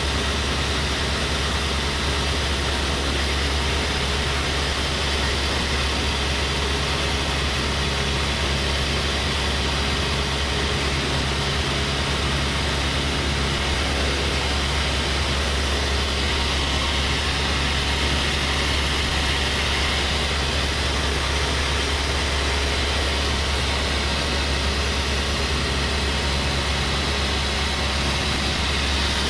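Steady drone of a small propeller airplane's engine and propeller in flight, heard from inside the cockpit, with an even hiss of airflow over it.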